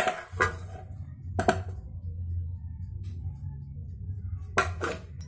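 Aluminium cake tin being handled and tilted to spread flour, knocking or clinking briefly about a second and a half in and again near the end, over a steady low hum.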